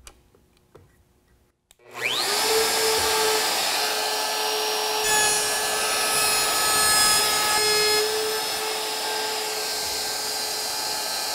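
A few faint clicks as the router's depth stop is set. Then a DeWalt compact trim router starts about two seconds in, its whine climbing to full speed, and runs steadily while its bearing-guided flush-trim bit routs a hinge mortise through an MDF jig. Its pitch begins to fall at the very end as it winds down.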